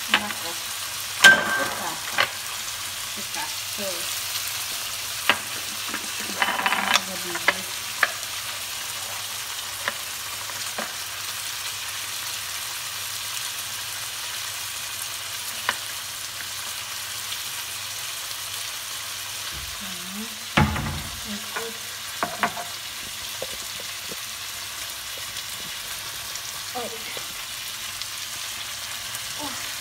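Chicken pieces frying in a stainless steel pan with a steady sizzle. Sharp clicks and knocks of seasoning jars and bottles being handled break in now and then, the loudest about a second in and about twenty seconds in.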